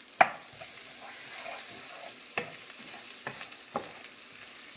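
Chopped garlic and ginger sizzling in hot oil in a pan, with a steady hiss, while a utensil stirs and knocks against the pan a few times. The loudest knock comes just after the start.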